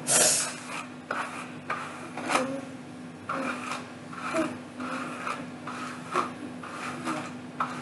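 Paddle hairbrush drawn through long hair in repeated rubbing strokes, roughly one a second.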